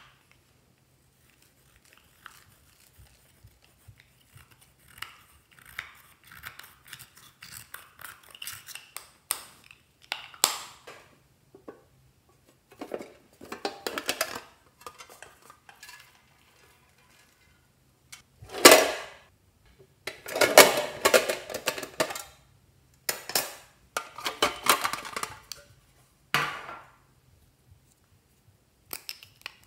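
Slime being mixed and squished with its add-ins: irregular bursts of sticky crackling and clicking, separated by short pauses and louder in the second half.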